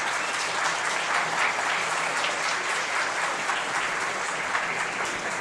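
Audience applauding, steady throughout and starting to thin out near the end.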